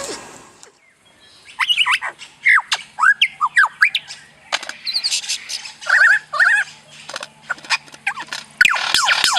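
Bird chirping and whistling: a string of short whistled notes, many sliding down in pitch. Near the end it turns into a dense, rapid run of chirps.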